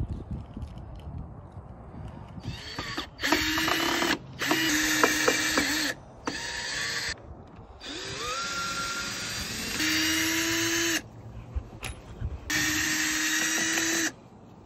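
Cordless drill running in a series of short trigger bursts of one to two seconds each, about seven in all, with one rising spin-up near the middle, as it works screws in the deck's wooden rim board.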